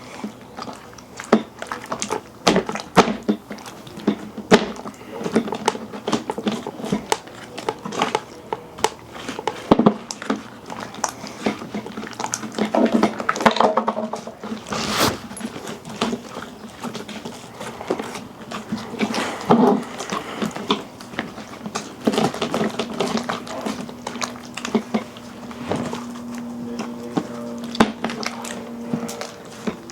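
Slime being kneaded and squeezed by hand, giving many quick wet clicks and squishes, with a steady low tone in the last few seconds.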